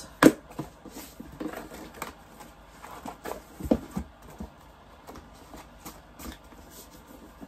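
Cardboard pillow-kit boxes and their fabric contents being handled: a sharp knock just after the start, then scattered soft taps and rustling.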